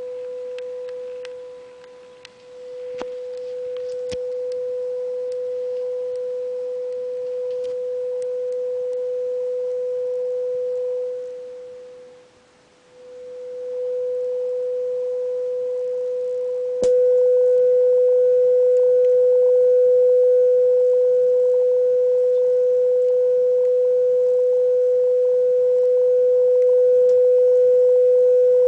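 Steady sine-wave test tone of about 500 Hz passing through a Fisher K-10 Spacexpander tube spring reverb unit, dipping in level twice with a couple of clicks as the level knob is turned. About 17 s in it jumps louder and takes on a harsher, overtone-laden edge as the signal distorts.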